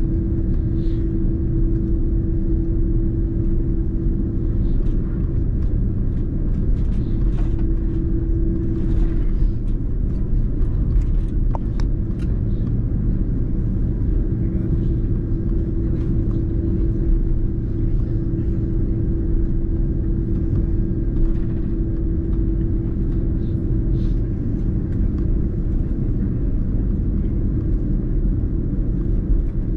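Cabin rumble of an Airbus A330-203 rolling on the ground after landing, heard from a window seat as it turns off the runway onto the taxiway, with a steady engine hum from its GE CF6-80E1A3 engines. The hum fades for a few seconds about a third of the way in, then returns.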